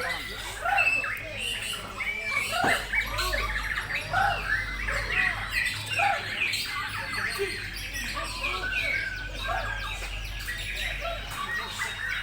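Bornean white-crowned shama singing in a songbird contest: quick whistled phrases and chattering calls, overlapping with other contest birds singing at the same time so that the song runs on without a break.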